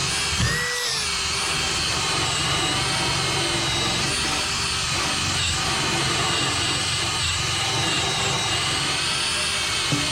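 Power drill spinning an abrasive bristle stripping disc against the painted aluminum hull of a boat, a steady motor whine that wavers slightly in pitch as the load changes. A short knock sounds about half a second in and another near the end.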